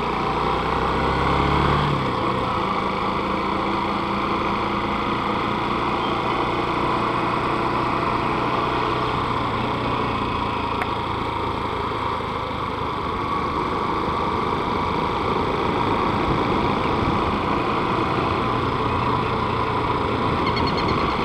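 Honda Bros 160's single-cylinder engine running steadily as the motorcycle rides along at low speed, heard through a helmet-mounted camera.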